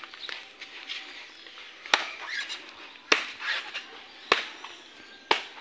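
Four sharp chopping strikes about a second apart, a blade cutting into coconuts.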